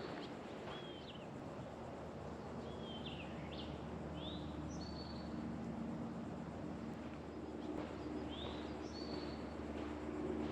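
A songbird repeating a short phrase of a few arched, slurred notes and a level high whistle, about every four to five seconds, over a steady low hum that grows a little louder partway through.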